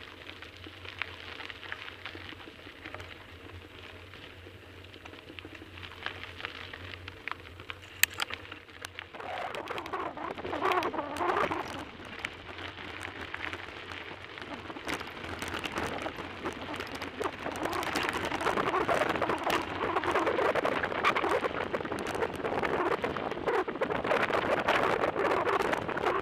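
Bicycle rolling along a loose gravel road: tyres crunching over the stones and the bike rattling. The noise becomes much louder and rougher about nine seconds in and stays loud.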